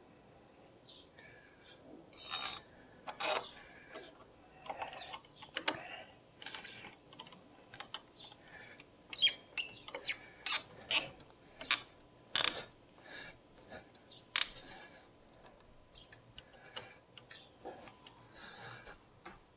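Irregular sharp clicks and clacks of metal door lock hardware being handled and worked, loudest in a cluster from about nine to fourteen seconds in.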